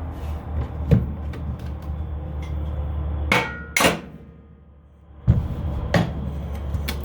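Several irregular hammer blows on a mower deck spindle, driving the shaft against a bearing stuck in the spindle housing; two blows near the middle ring briefly like struck metal.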